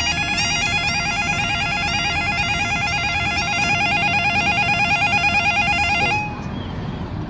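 Level crossing audible warning alarm sounding a loud, warbling electronic tone that cuts off suddenly about six seconds in. The uploader calls it a broken alarm.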